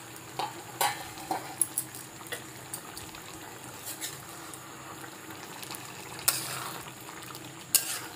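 Bottle gourd curry simmering in an open metal kadhai over a low-medium gas flame, with a few scattered clicks. Near the end a spoon scrapes and clinks against the pan as the curry is stirred.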